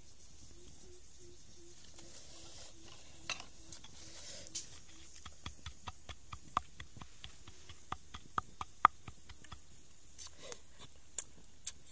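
Wooden pestle pounding chili sauce in a stone mortar: a quick run of sharp knocks, about four to five a second, starting about halfway through, then a few slower knocks near the end.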